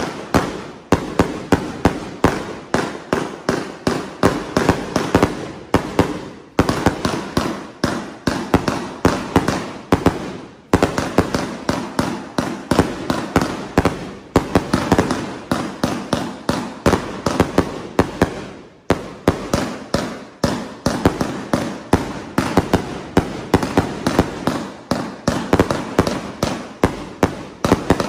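2-inch shell firework cakes (49-shot) firing in rapid succession: shell launches and bursts, about two sharp bangs a second, with a few brief lulls.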